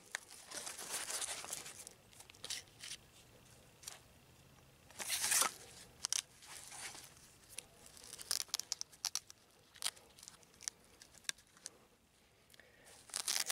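A nylon knife sheath being handled and its pouch opened: rustling, scraping and light clicks, with a louder rip about five seconds in.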